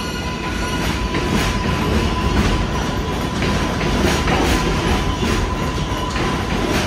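New York City Subway R188 train rolling along the track, its wheels clicking unevenly over the rail joints, with a thin steady whine that stops near the end.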